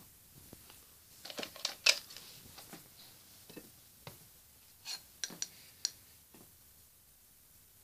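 Light clicks and clinks of the small hard parts of a miniature fire alarm being handled. A quick cluster comes about a second in, with the loudest click near two seconds, then scattered single clicks until about six seconds in.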